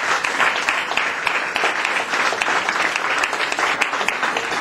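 Audience applauding in a small room: many people clapping steadily.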